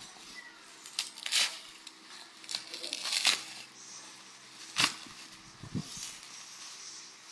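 Phone packaging being crinkled and torn open by hand: a series of short crinkling rustles, about six of them, spread irregularly.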